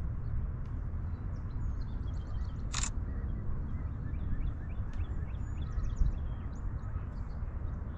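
Small birds chirping busily, many short high calls overlapping, over a steady low rumble. About three seconds in comes one brief, sharp, high sound.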